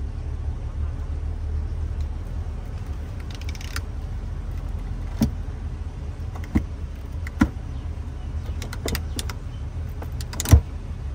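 Separate plastic clicks from a pickup's manual climate-control knob, sliders and dash buttons being turned and pressed, the sharpest one near the end, over a steady low hum in the cab.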